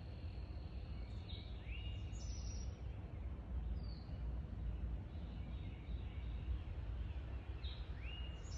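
Backyard birds calling over a steady low outdoor rumble: a call that rises and then holds level, with a higher short note, about a second and a half in and again near the end, and a short falling chirp in between. A thin steady high insect buzz stops just over a second in.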